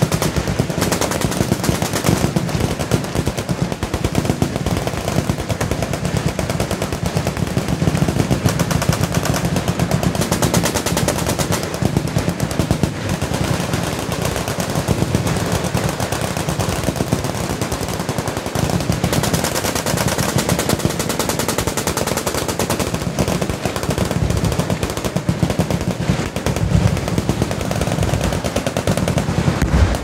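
Many machine guns firing at once along a range firing line: continuous, overlapping automatic fire with no pause.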